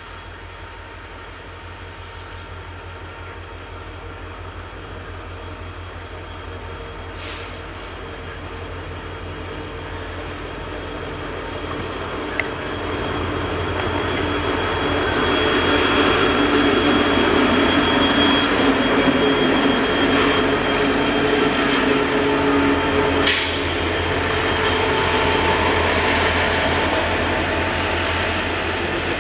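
Train on the rails, growing steadily louder as it approaches over the first fifteen seconds or so, then running past loud and steady, with a sharp knock about twelve seconds in and another about twenty-three seconds in.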